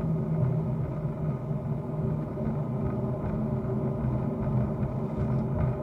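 Steady vehicle rumble with a constant low engine drone, heard from inside the vehicle.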